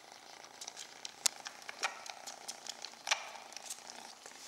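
Kitten suckling on a person's fingers: quick, irregular wet sucking clicks, several a second, with louder smacks about a second in, near two seconds and just after three seconds.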